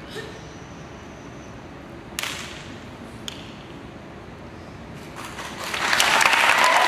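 A single sharp smack about two seconds in and a faint click a second later, then an audience starts applauding about five seconds in, the clapping swelling quickly and staying loud to the end.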